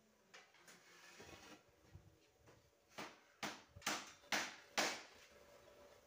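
Five quick scraping strokes, about two a second and each louder than the last, as a wooden board is swept across the steel mould of a concrete-block press to spread and level the loose block mix.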